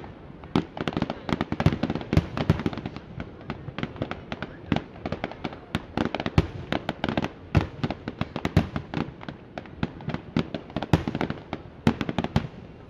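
Fireworks going off in a dense, irregular barrage of sharp bangs and cracks, many overlapping, several each second.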